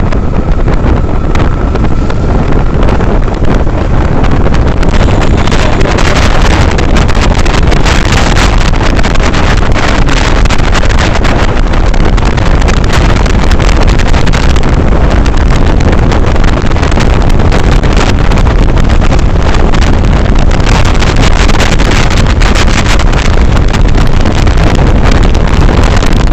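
Loud, steady wind rush buffeting the microphone of a motorcycle on the move.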